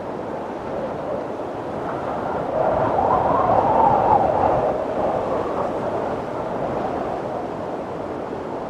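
Wind blowing steadily, with one gust swelling about three seconds in and easing away again.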